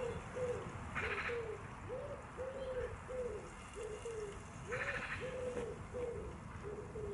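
Wood pigeon cooing: repeated phrases of soft hooting notes, each phrase opening with a short rising coo, then a longer stressed one and a few shorter ones after it. Two brief higher rattling sounds come in, about a second in and again near five seconds.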